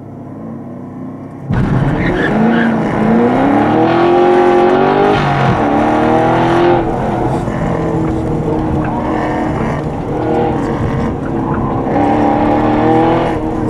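2020 Chevrolet Camaro 2SS 1LE's 6.2-litre V8 running hard on an autocross run. It is quieter at first, then jumps to full throttle about a second and a half in. Its pitch climbs and falls as the car accelerates and slows between cones.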